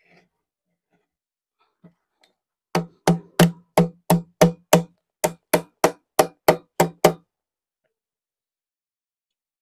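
A claw hammer strikes the end of a steel exhaust pipe about fourteen times, crimping it shut around a flexible pipe section. The blows start about three seconds in and come about three a second, with a short pause in the middle.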